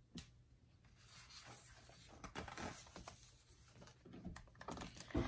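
Faint rustling of a paper page of a hardcover picture book being turned by hand, with a short tap near the end as the book is settled.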